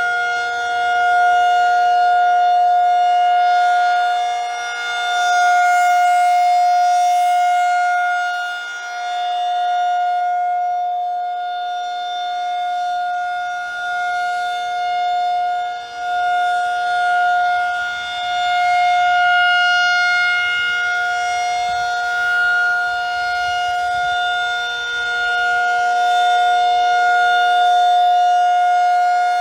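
Federal Signal 2001-SRN rotating tornado siren sounding a loud, steady single tone at full speed. Its loudness swells and fades every several seconds as the siren head turns.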